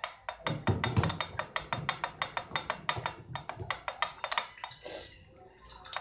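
Plastic spoon stirring a drink in a glass, clicking against the sides about five times a second, with a brief pause about five seconds in.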